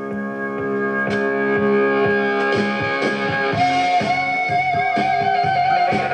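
Rowe R-89 jukebox playing a selected 45 rpm record: electric guitar music with a steady beat, showing the jukebox working again after its central control computer was replaced.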